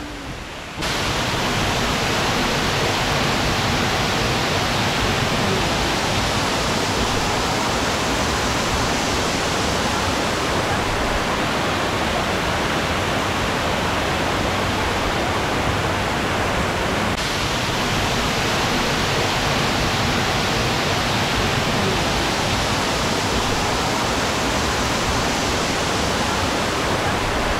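Water rushing steadily over a man-made waterfall and rock cascade, a loud, even wash of noise that comes up suddenly about a second in.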